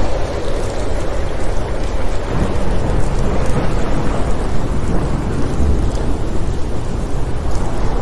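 Steady rain falling in a thunderstorm, over a low rolling rumble of thunder.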